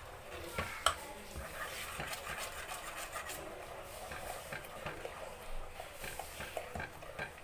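Metal spoon stirring thick corn and gram-flour batter in a steel saucepan: soft scraping with occasional light clinks of the spoon against the pan.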